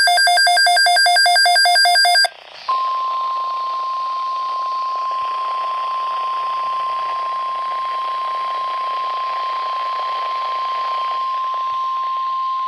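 NOAA Weather Radio emergency alert: about two seconds of rapid, warbling electronic data tones (the digital SAME alert header), then, after a brief gap, the steady 1050 Hz Warning Alarm Tone held for about ten seconds and cutting off suddenly. The tone signals that an urgent weather announcement, here a tornado watch, is about to be read.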